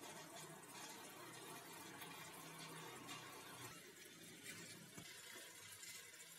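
Faint, steady sizzling hiss of onion-tomato gravy cooking in ghee in a pan on a gas stove, with a soft knock about five seconds in.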